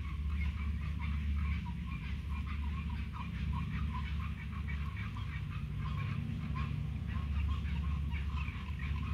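A chorus of many short, repeated animal calls over a steady low rumble.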